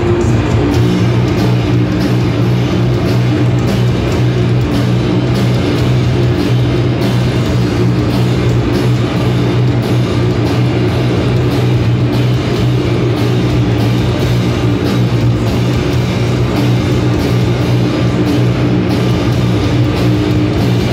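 A live band playing loud, heavy music: electric guitars and drums over a low note droning steadily, with no pauses.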